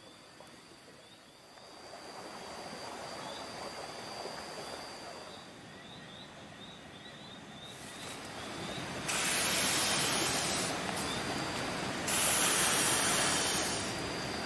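Rushing river water, a steady hiss that builds and jumps louder about nine seconds in and again about twelve seconds in, with a thin steady insect drone and rows of short high chirps over it.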